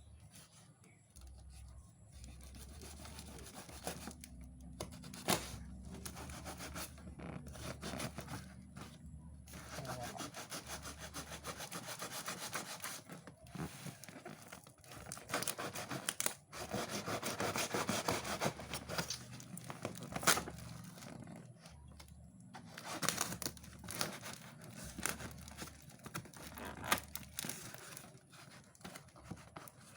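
Packaging being torn, cut and rustled as a parcel is opened: uneven scraping and rubbing, with a few sharp clicks.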